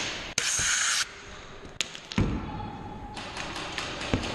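A loud hiss lasting about half a second, set off by a sharp click, then scattered sharp taps and clicks with one dull thud about two seconds in.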